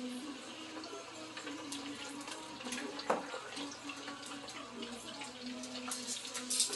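Potato chips deep-frying in hot oil: a steady sizzle with many scattered crackles and pops, and a sharp click about three seconds in. A faint low hum runs underneath.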